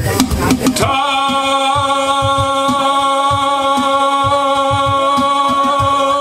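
A live rock-and-roll song coming to its end: the full backing stops about a second in, leaving one long held note that carries through, with a soft low pulse beneath it.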